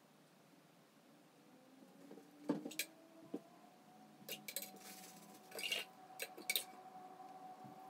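Light clinks and taps of glass or ceramic, as a paintbrush knocks against a water jar or palette: a scattered run of sharp clinks from about two and a half seconds in to near the end. Under them a faint whine rises from about two seconds in and then holds steady.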